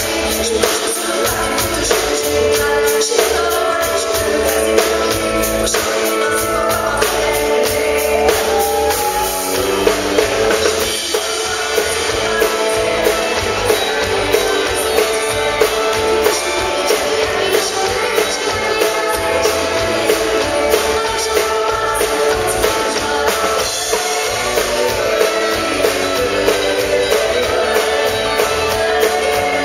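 Live country band playing: a woman sings into a microphone over electric guitar, bass and a steady drum-kit beat.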